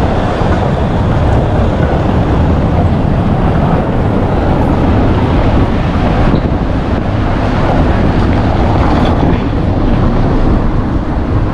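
Loud, steady rumbling of wind buffeting the camera's microphone while walking outdoors.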